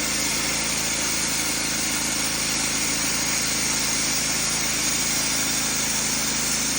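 An engine-driven sawmill running steadily, its engine and blade keeping an even, unbroken drone.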